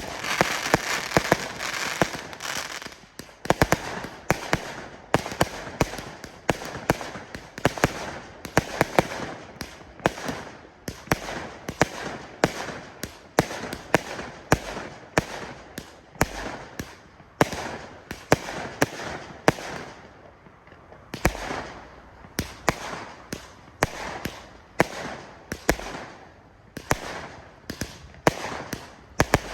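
Klasek Profi Show 200-shot firework cake (20 mm tubes) firing a rapid, continuous string of sharp shots and bursts, with a dense hissing spell in the first few seconds and a brief lull about twenty seconds in.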